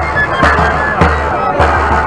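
Festive music: a steady low drum beat, about one and a half beats a second, under a high melody.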